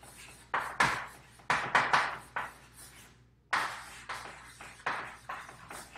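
Chalk writing on a chalkboard: a quick run of short scratchy strokes and taps, with a brief pause a little before the middle.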